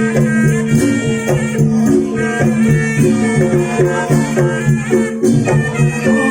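Javanese traditional dance music with a steady rhythm of pitched, struck notes.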